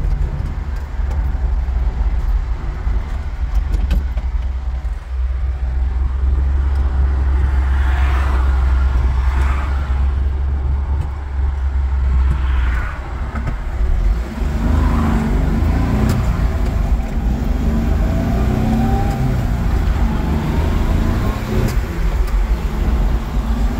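Kia Towner mini truck's small three-cylinder engine, running on a swapped-in 250cc motorcycle carburetor, pulling the truck along the road, heard from inside the cab. A heavy low rumble with road noise fills the first half; from about halfway the engine note rises and falls through a gear change, with a slowly rising whine.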